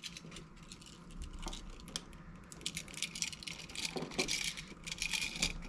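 Light, irregular clicking and scratching of a copper wire and a light switch being handled, as the wire is hooked onto the switch's terminal screw. It gets busier after about two seconds.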